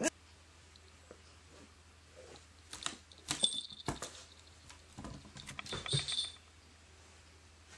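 Soft creaking and rustling of a wicker basket as a cat moves inside it, with a light jingle of a small collar bell, in two short bouts about three and six seconds in.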